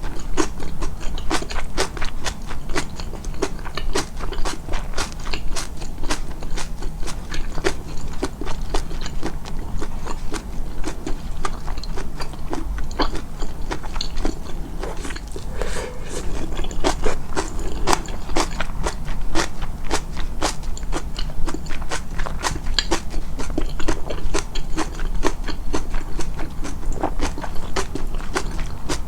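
Close-miked, amplified chewing of food: a dense run of wet clicks and crunches from biting and mastication.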